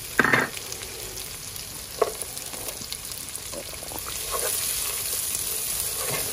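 Chopped onion sizzling in butter in a non-stick pan while a wooden spoon stirs it, with short knocks and scrapes of the spoon on the pan, one near the start and another about two seconds in. The sizzle grows louder about four seconds in.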